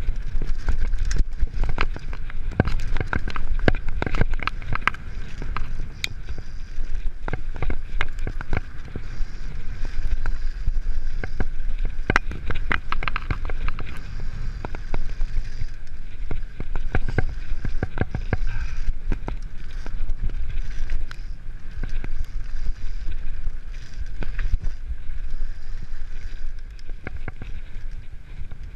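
Mountain bike riding fast down a dirt forest trail: a constant low rumble of tyres and wind on the mic, with frequent sharp rattles and knocks from the bike over bumps.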